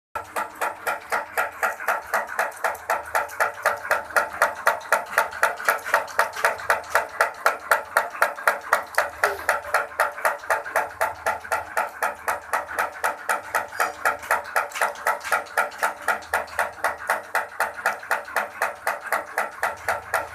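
Insulation paper cutting and side folding machine for ceiling fan motor slots, running at a steady cycle with an even rhythm of sharp mechanical clacks, about four a second.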